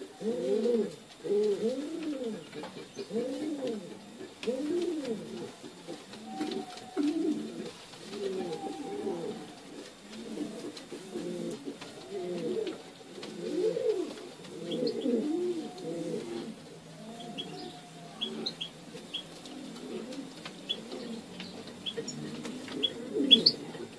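Domestic fancy pigeons cooing: a continuous run of low coos, each rising and falling, about one a second. Short, high ticks join in over the second half.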